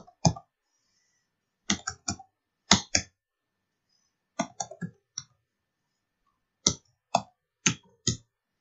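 Computer keyboard keys struck one at a time in short irregular groups with pauses between, typing an alphanumeric code into a form field.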